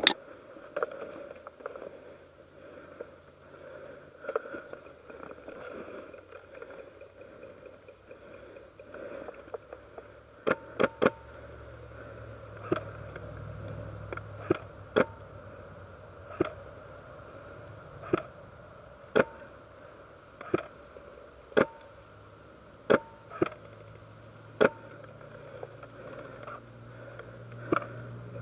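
Sharp snaps of airsoft guns firing: three quick shots about ten seconds in, then single shots every second or two. A low rumble runs underneath them from about the same point.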